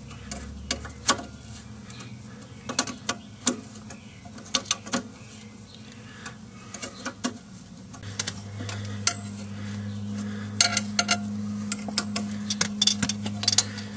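Steel wrench clinking and clicking against the wheel cylinder's brake line fitting and backing plate as it is fitted and worked, in irregular sharp metallic taps. A low steady hum comes in about eight seconds in.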